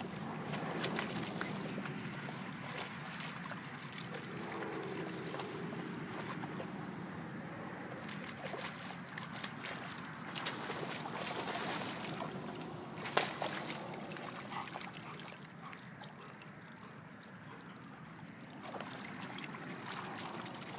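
Water sloshing and trickling as a Labrador retriever wades through a shallow puddle, its head down in the water. A single sharp knock about two-thirds of the way through.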